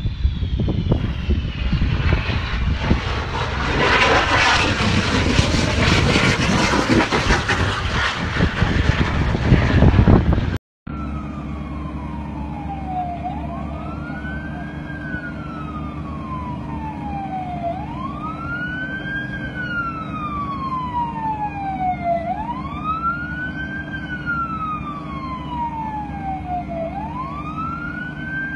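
Jet aircraft noise: a high whine falling in pitch, then a loud rushing roar that swells and stops abruptly about ten seconds in. After a brief gap, an emergency-vehicle siren wails over a steady low hum, each cycle rising quickly and falling slowly, about every four and a half seconds.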